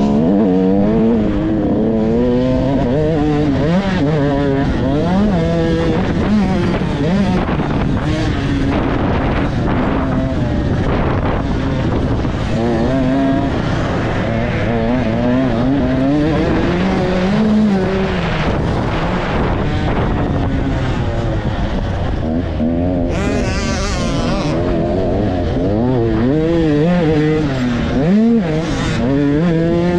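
Dirt bike engine running hard, its pitch climbing and dropping every second or two as the throttle opens and closes and the gears change, with a steady rushing hiss over it.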